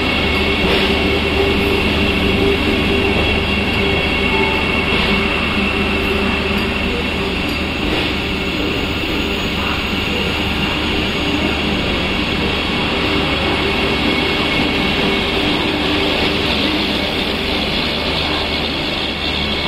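Vande Bharat Express electric train set standing at the platform, its onboard equipment running with a steady hum and a high whine.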